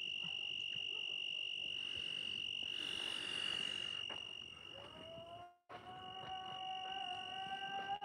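Insects trilling in one steady high note, with a soft hiss swelling briefly about three seconds in. From a little past halfway a faint, long drawn-out tone with overtones comes in, rising slightly and then held. The sound cuts out for an instant just before it steadies.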